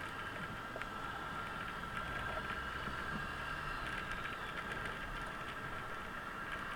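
Suzuki Burgman 650 maxi-scooter under way, heard from the rider's seat: a steady blend of engine and riding noise with a constant high tone over it.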